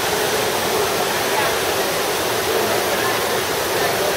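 Trevi Fountain's water cascading into its basin, a steady rushing hiss, under the chatter of a large crowd of tourists.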